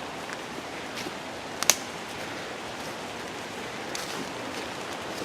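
Steady rain falling on the trees and trail, an even hiss, with one sharp click about a second and a half in.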